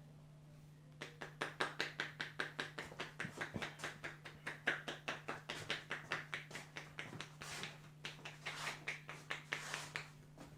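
A barber's hands tapping rapidly in a head massage, about five quick strikes a second. The tapping starts about a second in and stops near the end.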